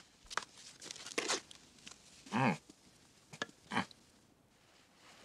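Bedclothes and clothing rustling and crinkling in several short spells, with a brief hummed voice sound about two and a half seconds in.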